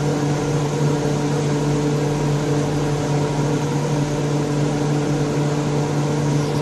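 Vacuum pump of a glass-laminating machine running steadily, drawing down the vacuum bag at the start of a lamination cycle: an even hum with a rushing noise over it.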